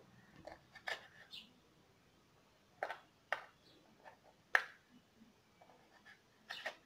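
Kitchen knife cutting lemons into wedges on a wooden cutting board: a handful of short, irregularly spaced knocks as the blade goes through the fruit onto the board.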